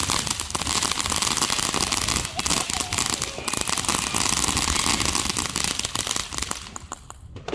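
A ground firework that has tipped over, burning on its side with a loud, dense hiss and rapid crackling; it dies down about seven seconds in.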